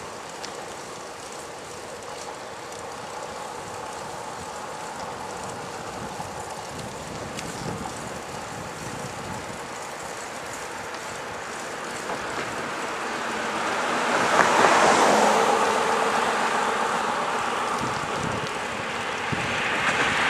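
Wind on the microphone and road noise from a bicycle ride along a road, a steady rushing that swells louder about fourteen seconds in and eases off again.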